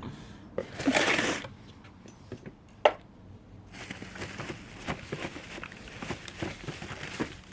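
Packaging being handled and unwrapped: a loud rustle about a second in, a sharp snap near three seconds, then steady crinkling and rustling with small clicks.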